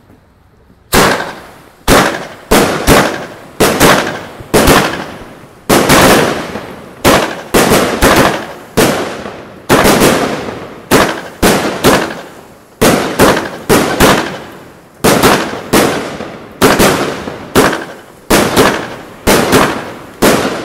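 Burn-It "Massive" 25-shot, 500 g fireworks cake firing its shots one after another. The bangs start about a second in and come roughly two a second, each a sharp bang that fades quickly.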